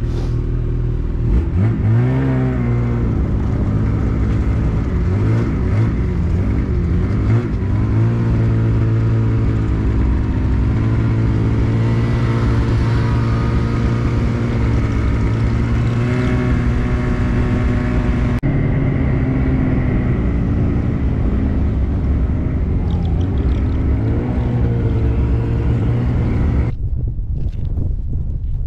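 Snowmobile engine running under way, heard from the passenger seat: it revs up about a second and a half in, then holds a steady drone whose pitch rises and falls a little with speed.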